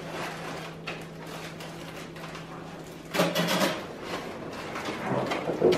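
Balloons being handled: latex balloons rubbing and squeaking against each other and a foil balloon crinkling as it is fixed in place. A louder burst of this rubbing comes about three seconds in and a shorter one near the end.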